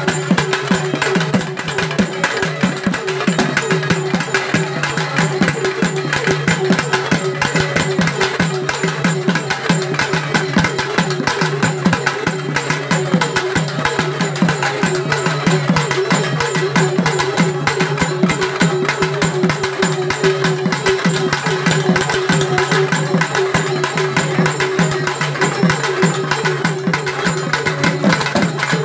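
Fast, continuous drumming on double-headed barrel drums with dense, rapid strokes, over a steady sustained tone.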